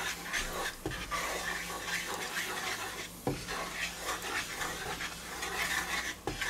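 Butter-and-flour roux sizzling and bubbling in a frying pan, with a wooden spoon stirring and scraping it across the pan's base. The sizzle is a steady hiss with small crackles.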